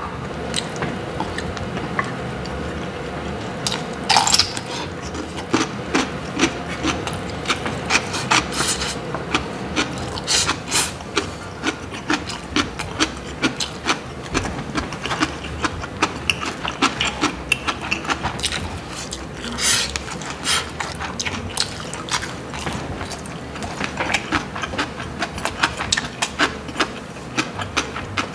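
Close-up eating sounds: wet chewing and smacking of mouthfuls of rice and pork, with wooden chopsticks clicking and scraping against stainless steel trays, many short clicks over a steady hum.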